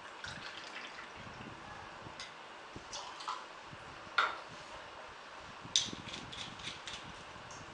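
Liquid poured from a bottle through a metal jigger into a steel cocktail shaker, with light clinks and taps of glass and metal bar tools; a sharper clink about four seconds in and a quick run of small clicks near six seconds.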